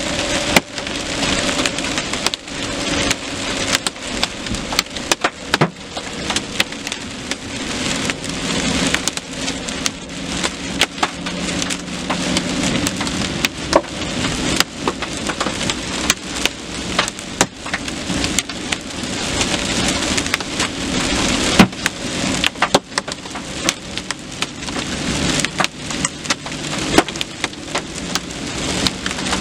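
Hail and heavy rain pelting a vehicle's windshield and body, heard from inside the cab: a steady drumming hiss broken by frequent sharp, irregular cracks of hailstones striking.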